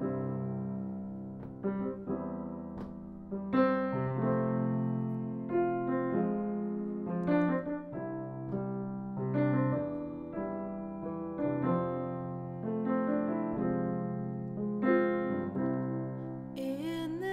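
Acoustic grand piano playing the solo opening of a song, several notes sounding together and ringing on between strikes. A woman's singing voice comes in right at the end.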